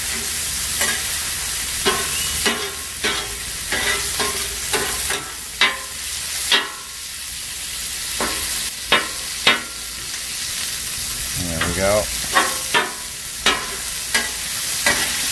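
Bratwurst sausage meat sizzling steadily as it browns on a steel flat-top griddle. Repeated sharp scrapes and clinks of a metal spatula and tongs on the griddle as the meat is chopped apart and turned.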